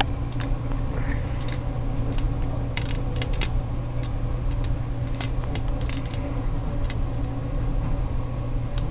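Scattered light clicks and taps, about a dozen at uneven intervals, over a steady low hum, from a kitten playing with a fishing pole.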